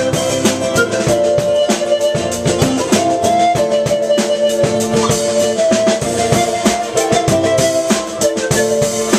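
Live band music: bamboo pan pipes (zampoña) play a melody of held notes that step up and down, over a strummed acoustic guitar and a steady percussion beat.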